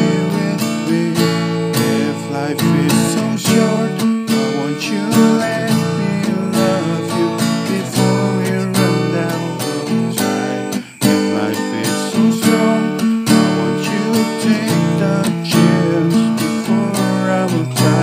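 Acoustic guitar music, strummed and plucked, with a brief dip in loudness about eleven seconds in.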